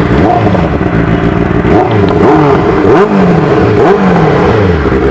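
Benelli TNT 600i inline-four on its stock exhaust, revved in about five quick throttle blips, each rising sharply in pitch and falling back toward idle.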